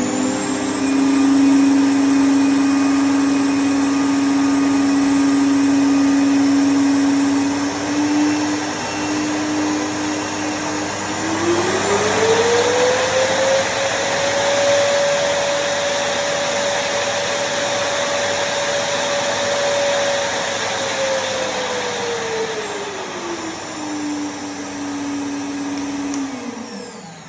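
Hoover 2000 W canister vacuum cleaner running with a steady motor whine and air rush. About eleven seconds in, the whine rises sharply in pitch and holds there for about ten seconds. It then drops back and winds down near the end.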